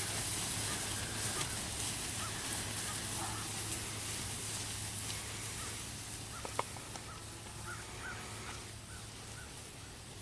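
Outdoor ambience with a steady low hum and hiss, and faint short bird chirps, several in quick succession about three-quarters of the way through. A single sharp click sounds a little past the middle.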